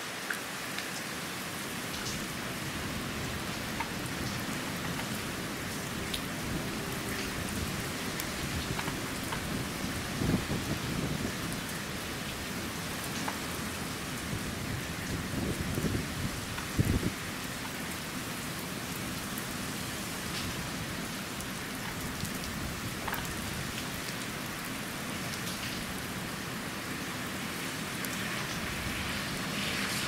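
Heavy typhoon rain pouring steadily onto a wet paved street, a constant hiss of drops hitting the asphalt. There are a couple of short, louder low thumps, about ten and seventeen seconds in.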